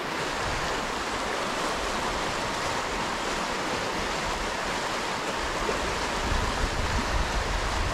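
Steady rushing of a river's white-water current running over rocks, with low wind rumble on the microphone growing in the last few seconds.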